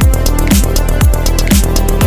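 Electronic dance music with a steady beat of heavy kick drums, about two a second, and hi-hats between them.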